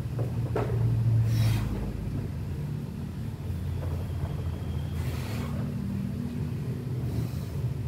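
Steady low rumble of a running motor, with two short hiss-like sounds about four seconds apart.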